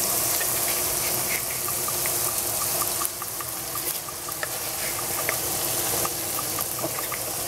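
Steady hissing with scattered small pops from the stovetop, where a large stainless pot of water is heating and a pan of food is frying.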